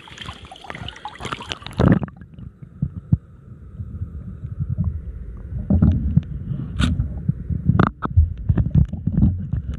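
River water splashing as the camera goes under about two seconds in, then muffled underwater sound: irregular low thuds and knocks from movement in the water, a few sharp clicks, and a faint steady high hum.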